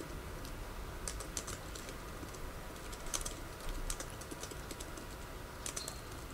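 Typing on a computer keyboard: irregular runs of quick key clicks with short pauses between them.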